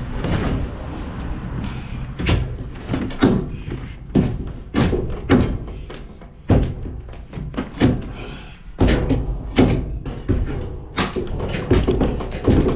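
Crowbar levering and knocking at old wooden floorboards in a metal horsebox: about a dozen irregular thuds and knocks, one or two seconds apart, as the boards are pried loose from the chassis.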